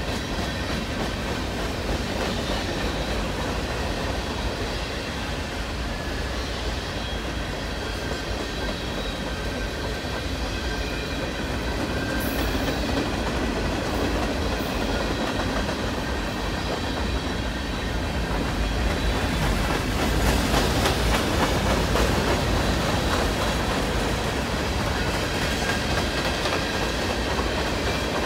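Freight cars of a Union Pacific mixed manifest train (covered hoppers and tank cars) rolling past: a steady rumble of steel wheels on rail, with rhythmic clicking as the wheelsets cross rail joints and a faint high wheel squeal. The clatter grows louder about twenty seconds in.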